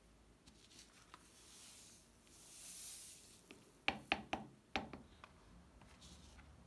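Loose coloured sand hissing softly as it slides off a tilted sand-painting card, then a quick run of about five sharp taps as the card is knocked to shake off the excess.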